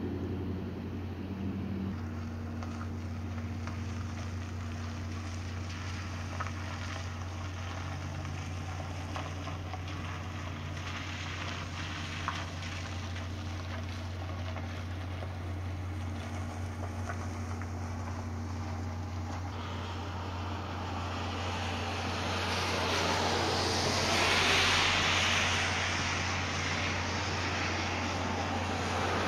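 Steady low engine hum with a steady higher tone above it, like a diesel idling. A rushing noise swells about two-thirds of the way through and again near the end.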